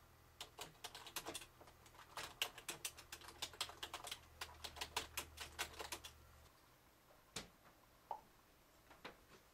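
Typing on a computer keyboard: a quick run of keystrokes for about six seconds, followed by a few single clicks spaced apart near the end.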